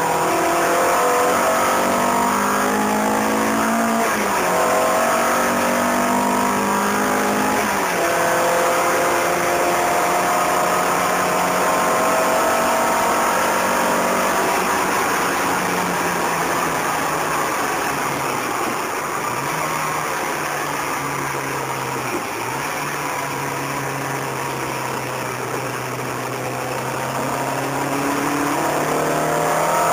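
Car engine heard from inside the cabin under hard track driving. The revs climb and drop sharply with upshifts about 4 and 8 seconds in, hold high, then fall away through the middle before climbing again near the end, over steady road and wind noise.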